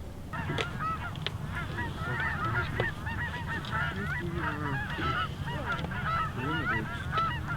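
Many geese honking and clucking at once: a rapid, overlapping chorus of short calls that starts a moment in.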